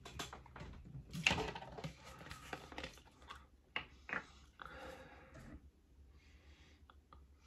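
Plastic sports-drink bottles being handled: scattered light clicks and knocks, with a louder rustle about a second in and a short breathy rush a little past the middle.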